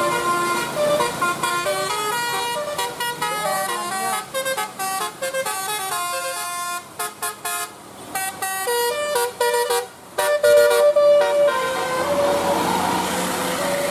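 Indonesian 'telolet' bus horn: multi-tone air horns playing a quick melody of short notes with brief gaps, the loudest notes held a little longer about two-thirds of the way in. A steady rushing noise takes over near the end.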